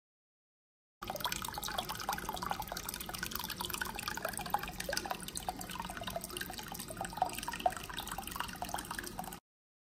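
Sous vide immersion circulator churning its water bath: a steady bubbling, gurgling patter of moving water. It starts abruptly about a second in and cuts off suddenly near the end.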